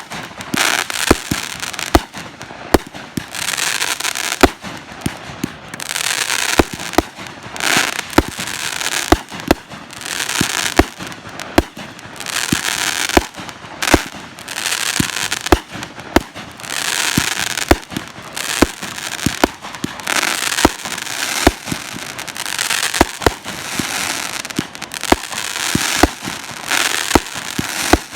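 Aerial fireworks display going off: a rapid run of sharp booms, about two a second, over waves of crackling that swell and fade as shells burst.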